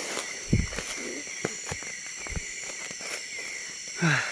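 Steady high chirring of night insects in tropical forest, with irregular footsteps thumping on the forest floor, the loudest about half a second in. Near the end comes a short, low, falling vocal sound like a tired grunt.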